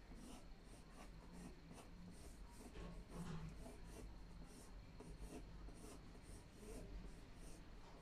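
Faint, quick pencil strokes on paper, about three a second, as a drawing is shaded.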